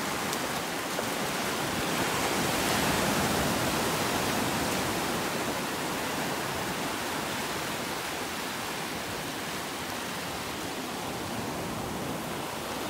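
Ocean surf breaking and washing up a sandy beach: a steady hiss of waves and foam that swells about two seconds in and then slowly eases.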